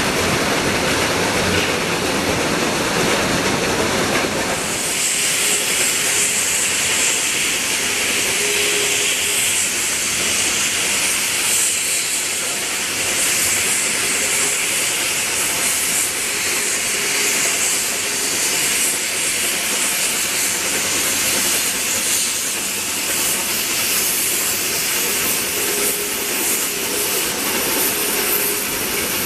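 Two Shay geared steam locomotives double-heading a long, heavy passenger train upgrade: a steady hiss of steam over the running noise of the train. The low rumble drops away about four or five seconds in and the hiss becomes brighter.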